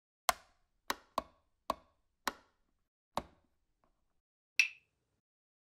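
Sound effect for an animated logo: six sharp, dry clicks at uneven intervals, then a final louder click with a short ringing tone.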